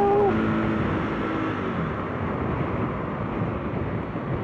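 Motorcycle riding at speed: wind rushing over the microphone with the engine running underneath. A steady engine note fades out about a second and a half in, leaving mostly wind noise.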